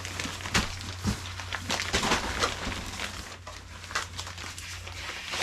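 Scattered clicks, knocks and rustling from a folding camping table and its packaging being handled, over a low steady hum.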